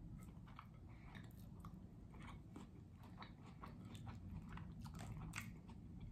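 A person chewing food close to the microphone, with many small, irregular wet mouth clicks.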